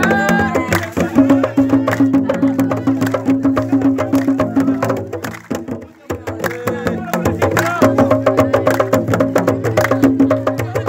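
Dance music with fast, evenly repeating clicking percussion over sustained low notes. It drops away briefly about five to six seconds in, then picks up again.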